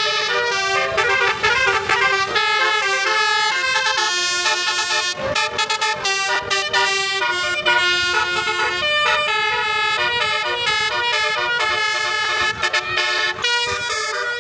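Telolet (basuri) musical air horns playing a tune, a quick run of changing notes, several sounding at once, with a brief sliding note in the first second.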